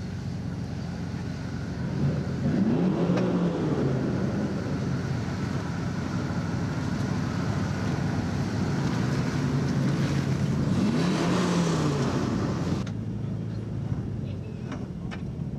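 Lifted full-size Ford pickup's engine pulling through deep mud, revving up and back down twice as the tyres spin. The engine sound cuts off suddenly near the end, leaving a quieter low hum.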